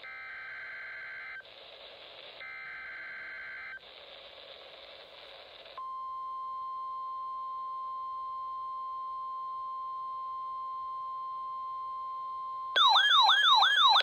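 NOAA Weather Radio test broadcast through a RadioShack weather alert radio's speaker: two short buzzy digital SAME header data bursts with static between them, then a steady single alert tone. About a second before the end, the radio's own loud warbling alert siren sets off.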